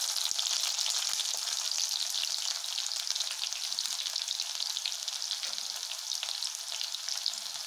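Chopped shallots frying in hot sesame oil in a kadai: a steady, dense sizzle with fine crackling.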